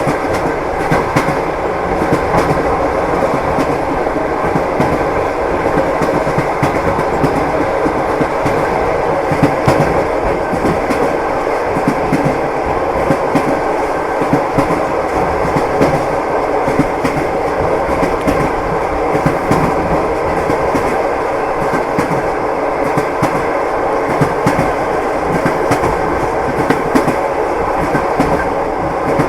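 Train running steadily, its wheels knocking and clattering over the rails in a continuous, even rumble.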